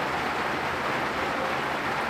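Steady rain falling, an even hiss that holds level with no single drops or breaks standing out.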